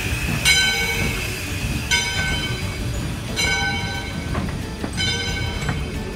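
Steam locomotive's bell ringing about every second and a half as a steam train rolls slowly past, over a steady low rumble of wheels on the rails.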